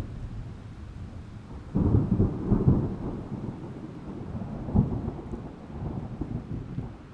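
Thunder with rain: a low rumble breaks into a sudden loud crackling peal about two seconds in, with another sharp crack near five seconds, then rolls away and fades.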